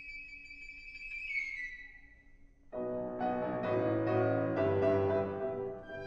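A piccolo holds a high note that slides down and fades away about two seconds in. After a brief pause, the grand piano comes in with a run of repeated chords, louder than the piccolo, the opening of the polka accompaniment.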